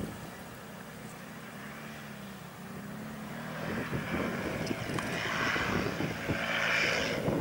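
ATV engine running steadily in deep mud and water. It grows louder in the second half, with a rushing noise swelling near the end.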